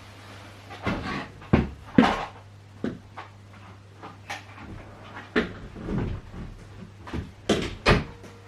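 Irregular knocks and clatter of a vacuum cleaner's hose and parts being handled, about ten sharp knocks at uneven spacing; the vacuum is not running.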